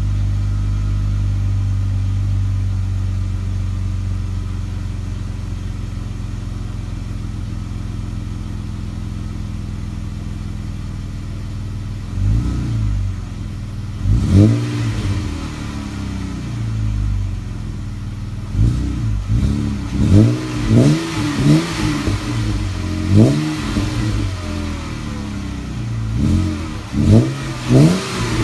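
Jeep Wrangler JK's 3.6-litre V6 running through a Penzl exhaust. It idles steadily at first, then about halfway through it is blipped in a string of short revs that rise and fall, coming quicker in the last third.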